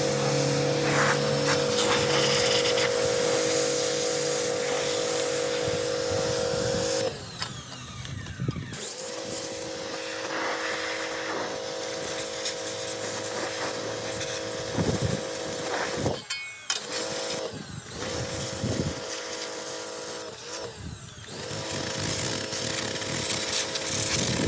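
Small electric pressure washer pump motor running with a steady whine over the hiss of the water jet. It stops for a couple of seconds about seven seconds in, then starts again and cuts out briefly a few more times near the end.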